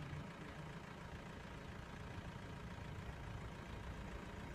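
Safari vehicle's engine running, a steady low rumble.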